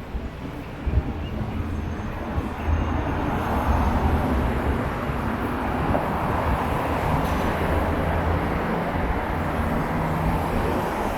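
City street traffic: vehicles driving past with a steady rumble of engines and tyres, growing louder about three seconds in.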